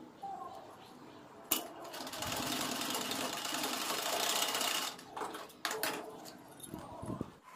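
Sewing machine stitching in one run of about three seconds, with sharp clicks and knocks from the machine and the fabric being handled before and after it.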